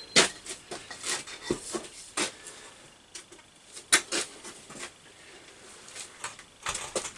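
Hand-operated pipe bender working a steel tube round its former: scattered irregular clicks and knocks as the lever is pulled a little at a time.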